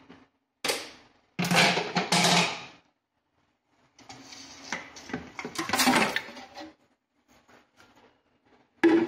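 Crushed ice being knocked and scraped out of a plastic blender jar into a stainless steel bowl, in several short bursts of clattering and rattling. The blender motor is not running.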